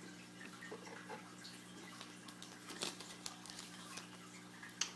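Faint scattered clicks and light taps of football trading cards being handled and flipped through by hand, over a steady low electrical hum.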